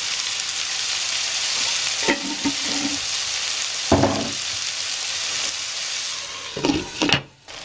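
Onions, oyster mushrooms and sliced bull testicles sizzling steadily as they fry in a wok, with a few light knocks. Near the end a glass lid is brought down onto the pan with a brief clatter, and the sizzle cuts off just before the end.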